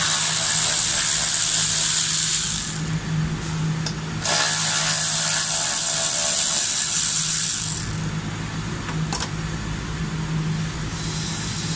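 Power ratchet running in two bursts of about three seconds each, backing out the two 10 mm bolts that hold the reservoir, over a steady low hum.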